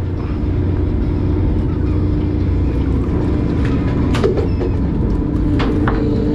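Fishing boat's engine running with a steady low drone, with a few short knocks and clatters about four seconds in and again near the end.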